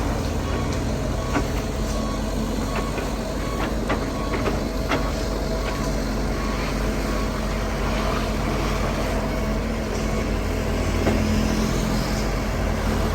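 Heavy diesel engines of an excavator and a dump truck running steadily under load. A run of sharp clanks and knocks from the digging work falls in the first five seconds.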